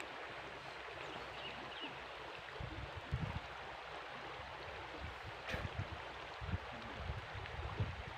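Steady rush of flowing river water, with a few short low thumps and one sharp click about halfway through.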